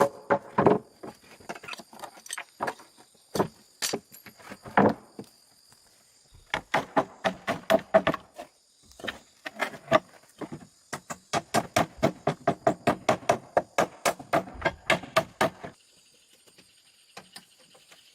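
Rapid runs of sharp knocks, about five a second, after a few seconds of scattered single knocks, stopping abruptly near the end. A steady high insect drone runs underneath.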